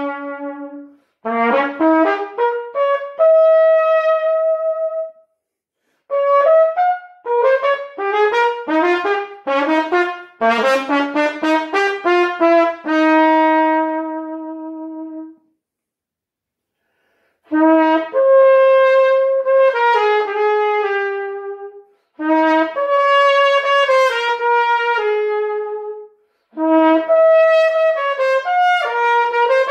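Unaccompanied B♭ trumpet, a B&S Challenger MBX-GL, playing a melodic solo. It plays phrases of quick runs, several ending on a held note, with short silent pauses between them.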